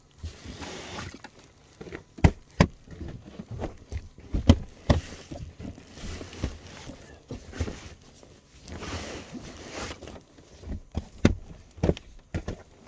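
Bedding rustling, with scattered knocks and thumps as pillows and blankets are handled in the cramped van; a few thumps stand out, about two seconds in and around four to five seconds in.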